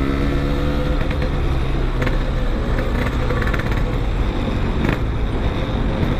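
Suzuki Shogun motorcycle's engine running steadily under way, with wind and road noise on the rider's microphone; its pitch has just dropped as the throttle is eased.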